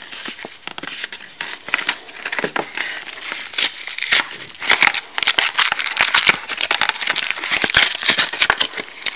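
Foil wrapper of a Pokémon trading-card booster pack crinkling and tearing as it is ripped open by hand: a continuous run of crackles and small rips that grows busier and louder about halfway through.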